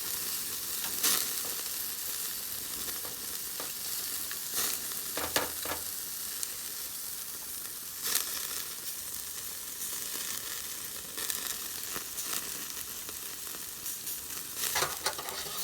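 Meat sizzling on a charcoal grill: a steady hiss broken by scattered sharp pops and clicks, with a short cluster of them about five seconds in and again near the end.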